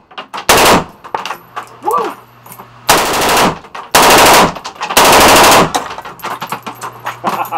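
Full-auto bursts from a CMMG Mk47 select-fire rifle in an indoor range: a short burst about half a second in, a brief one just after, then three longer bursts from about three seconds in, each under a second.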